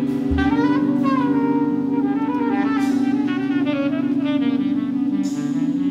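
Live jazz band: a saxophone plays a slow melody with bending notes over a steady, held low drone, with a low drum hit just after the start and a cymbal wash near the end.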